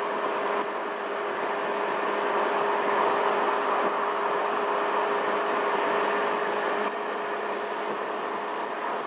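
Honda Helix CN250 scooter cruising at highway speed, about 55 mph: a steady rush of wind and road noise with a quiet, steady engine hum underneath.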